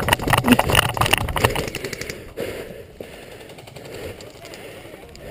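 Airsoft electric guns firing rapid full-auto bursts: a fast run of sharp clicks and cracks that dies down about two seconds in.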